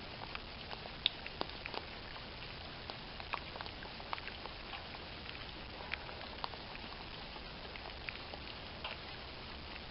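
Light rain pattering: many faint, irregular ticks over a steady hiss.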